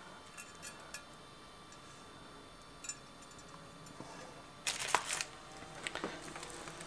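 Small clicks and scrapes of lock wire being handled and bent around a brake rotor bolt, with a brief louder rattle about five seconds in and a few ticks after it.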